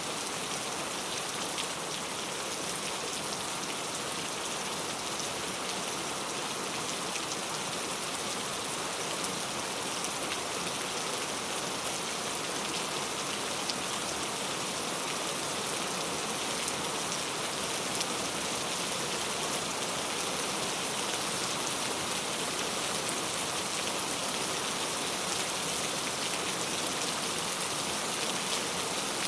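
Heavy rain falling steadily, a dense hiss of raindrops with many fine drop ticks.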